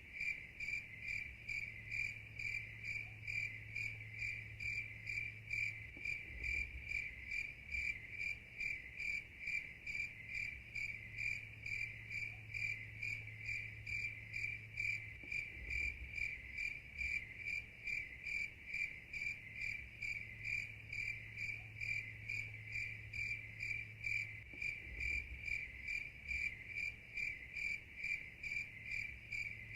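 Crickets chirping steadily in an even rhythm of about two chirps a second. Under them runs a low hum that breaks off briefly, with a soft thump, about every nine seconds.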